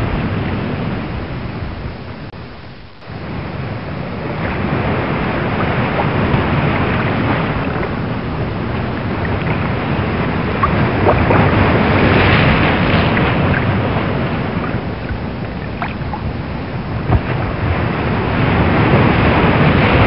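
Rough open sea: waves surging and breaking with a rush of wind, swelling and easing, with a brief lull about three seconds in.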